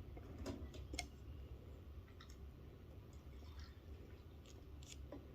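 A few faint, scattered clicks and light knocks from handling the opened welder foot pedal and its parts, over a steady low hum.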